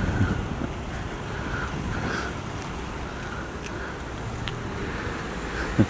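Toyota Tacoma pickup truck driving slowly past and pulling away, a steady low rumble of engine and tyres mixed with wind noise on the microphone. A short thump near the end.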